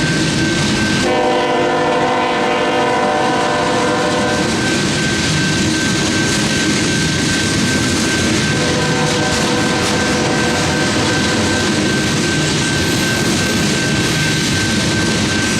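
Union Pacific freight train rolling through a grade crossing, wheels clattering steadily. The locomotive horn sounds a chord for about three and a half seconds starting a second in, then again more faintly for a couple of seconds around the middle. The crossing's warning bell rings as a steady high tone throughout.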